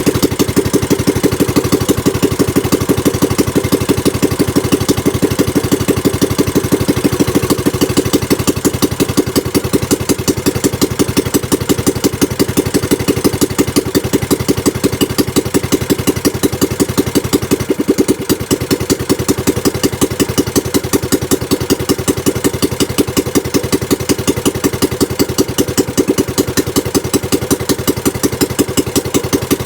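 Small single-cylinder gasoline boat engine running steadily at idle on a newly fitted carburetor, with an even, rapid firing beat.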